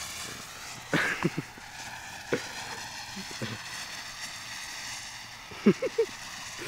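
Firework fountain spraying sparks with a steady hiss, broken by a few short sharp sounds about a second in and again in a quick cluster near the end.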